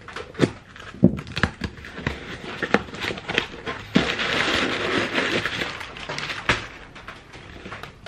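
A cardboard parcel being opened and unpacked by hand: scattered taps, scrapes and knocks of cardboard, with a denser stretch of rustling packaging from about four to six seconds in.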